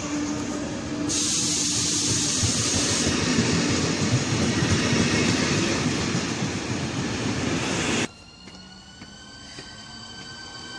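A train passing close along a station platform, a loud, even rush of wheel and running noise. About eight seconds in it cuts suddenly to a much quieter electric multiple unit, a ČD class 660 RegioPanter, with a thin whine from its traction motors slowly rising in pitch.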